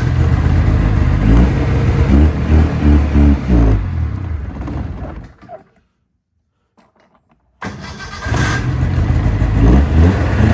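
Snowmobile two-stroke twin engine running and being revved, freshly started. It dies away about five seconds in, falls silent for about two seconds, then is running and revving again.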